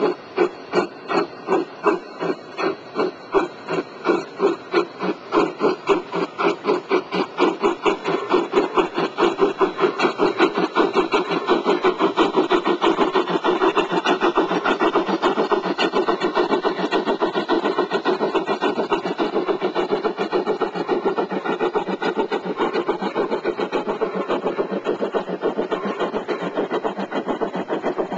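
Bachmann large-scale Shay model locomotive and its train running on garden track, giving a rhythmic beat. The beat starts at about two a second and quickens over the first ten seconds into a fast, steady patter.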